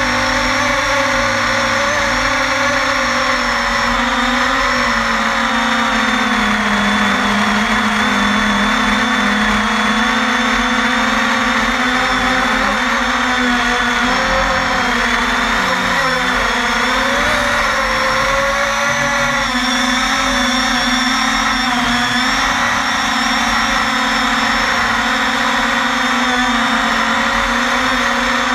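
The brushless motors and 5-inch Gemfan propellers of a 250-size FPV quadcopter in flight, heard from the camera mounted on the frame: a steady buzzing whine whose pitch wavers up and down with the throttle, most of all around the middle.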